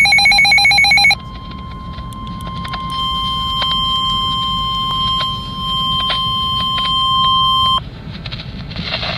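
NOAA Weather Radio emergency alert: a burst of warbling digital SAME header tones cuts off about a second in. It is followed by the steady single-pitch 1050 Hz warning alarm tone for about seven seconds, with scattered static clicks, and the tone stops shortly before the end. The alarm tone signals that a severe thunderstorm warning follows.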